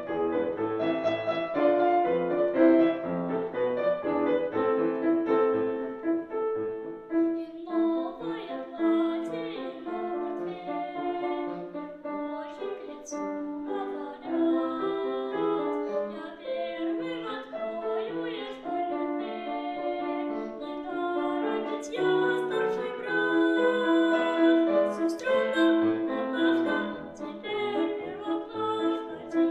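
Piano-led instrumental accompaniment of a children's song plays on through an instrumental interlude, with steady sustained notes.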